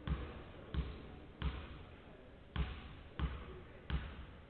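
A basketball dribbled six times on a hardwood court: a player's bounces at the free-throw line before the shot. The bounces come at a steady pace, with a slightly longer pause after the third.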